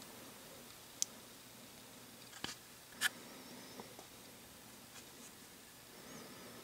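Faint handling noises of painting supplies on a hobby bench: a light click about a second in, then two sharper clicks half a second apart a couple of seconds later, over quiet room tone.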